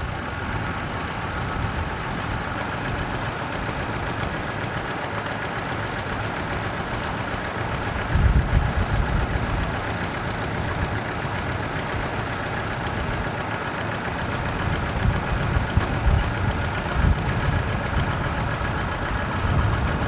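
Tractor engine running steadily, with heavier low rumbles about eight seconds in and again near the end.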